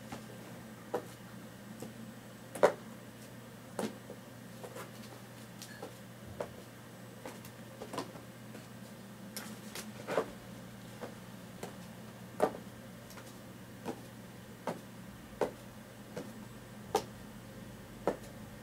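Irregular sharp taps and soft thumps, roughly one a second, as a kitten pounces, rolls and bats at a feather wand toy on a carpeted floor, over a steady low hum.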